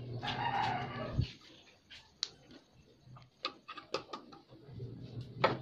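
Scattered small clicks and handling noise as a motorcycle CDI unit is plugged into its wiring connector and pushed into its holder, with one sharper click near the end.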